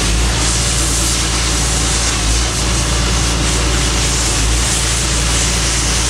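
Oxy-fuel cutting torch hissing steadily as it cuts through a steel rail, over a steady low rumble.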